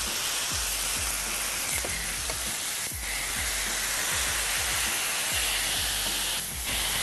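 Marinated chicken shish tawook skewers sizzling on a grill pan heated over high gas flame: a steady hiss as the meat sears on the hot ridges.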